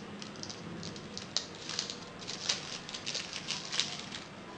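Packaging being handled while taking out a camera battery: irregular crinkling and rustling with a few sharp clicks.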